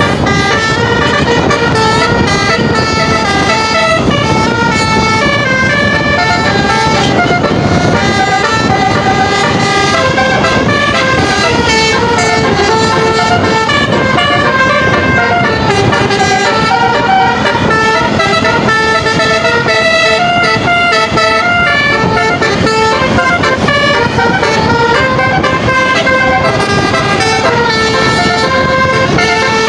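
Basuri telolet musical bus horn playing a continuous tune of quick stepped notes, loud, over a low rumble.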